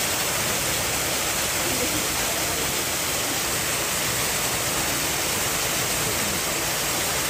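Steady rushing of water, an even hiss at a constant level with no distinct splashes.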